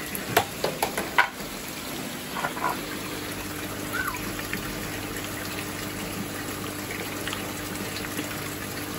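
Water running steadily into a koi tank, a trickling and gushing flow as from a filter return, over a faint low hum. A few sharp clicks and splashes come in the first second and a half.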